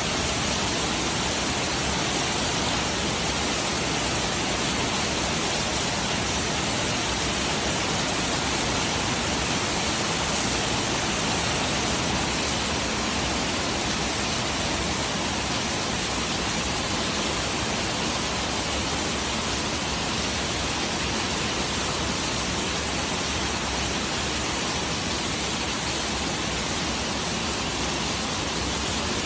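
Steady rain, an even hiss with no change in level and no single drops or sounds standing out.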